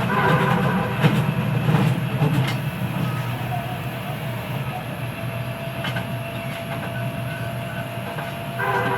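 Running noise of a Kita-Osaka Kyuko 9000 series EMU (Toshiba IGBT VVVF inverter driving permanent-magnet synchronous motors), heard through the car floor right above a traction motor. A heavy low rumble with a few clicks from the rails eases over the first few seconds, and a steady motor-and-inverter whine holds from about halfway through.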